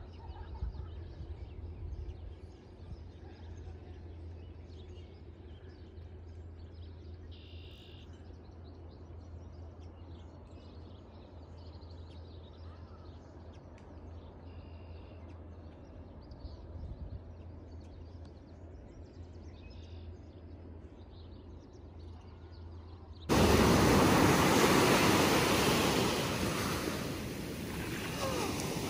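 Faint outdoor ambience with a steady low hum and a few brief, faint high chirps. About 23 seconds in it cuts suddenly to loud surf: small waves breaking and washing in over the shore.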